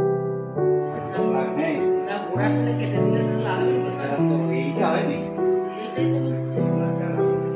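Background music, a slow keyboard tune of held notes. Faint room noise and a few clicks lie beneath it from about half a second in.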